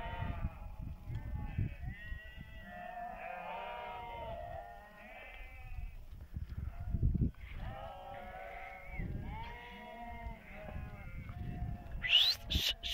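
A flock of sheep bleating, many overlapping calls from several animals. A quick run of sharp clicks comes near the end.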